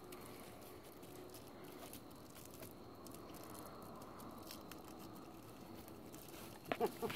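Wrapper of a piece of candy crinkling faintly as it is being opened by hand. Near the end there is a brief, louder pitched sound.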